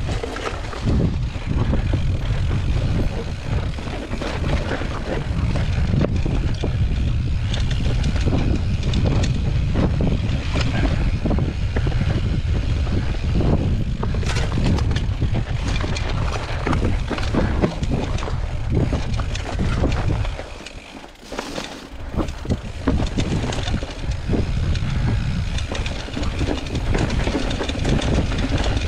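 Mountain bike riding over a rocky trail: wind rumbling on the microphone, with frequent rattles and knocks from the bike over the rocks. The rumble drops away briefly about twenty seconds in.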